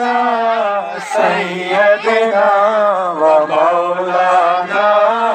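A man's voice chanting a durood (salawat) in long, held melodic phrases, with a brief break about a second in.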